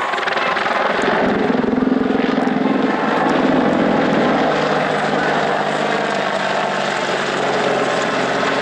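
Boeing AH-64 Apache attack helicopter flying a display pass: a dense, fast rotor chop over engine noise. A low hum swells about a second in and eases after about four seconds as the helicopter turns.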